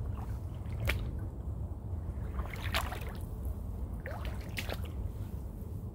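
Twigs and briars brushing and scraping as someone pushes through thick brush: four short scrapes, two of them sweeping quickly in pitch, over a steady low rumble.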